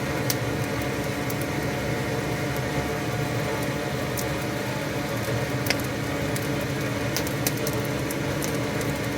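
Blacksmith's coal forge fire burning with its air supply running: a steady hum and rush of forced air, broken now and then by sharp single crackles from the burning wood and anthracite.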